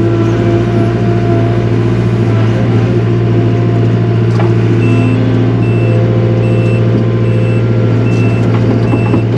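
Takeuchi TL240 compact track loader's engine running loud and steady under the operator, with its backup alarm beeping about once a second from about halfway through as the machine reverses.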